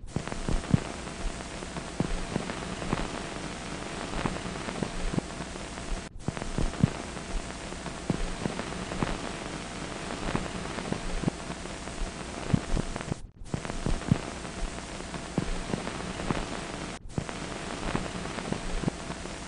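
Hiss and crackle of an old 1940s film soundtrack, with scattered pops over a faint steady hum and no speech or music. It cuts out for a moment three times.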